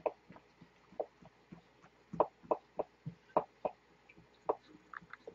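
Knife slicing a strawberry roll cake in a plastic tray: a dozen or so soft, irregular clicks and taps as the blade cuts and knocks against the tray.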